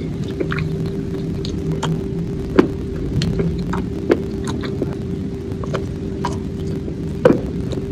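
Close-up mouth sounds of chewing dry grey clay chunks: scattered sharp crunches and crackles, two of them louder, about two and a half seconds in and near the end. A steady low hum runs underneath.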